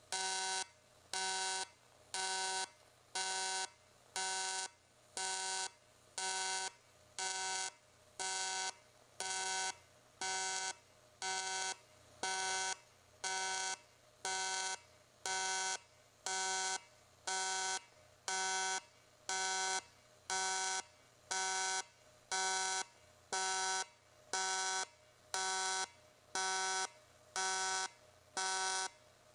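AC TIG welding arc on aluminium sheet from an Everlast 210EXT welder, buzzing in even pulses a little faster than once a second and dropping out between them: the welder's built-in pulse setting.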